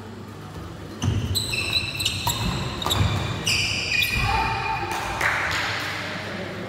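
Badminton doubles rally on a wooden indoor court: sports shoes squeaking repeatedly on the floor, mixed with the knocks of racquets hitting the shuttlecock, starting about a second in.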